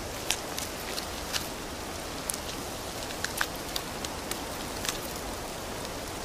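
Japanese macaques gnawing and stripping tree bark: irregular crisp ticks and snaps, a dozen or more, over a steady soft hiss.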